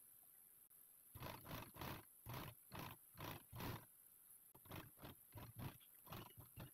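Faint rustling of a paper pattern and cotton fabric handled by hand, in a run of short irregular scrapes and crinkles, a few a second, that starts about a second in.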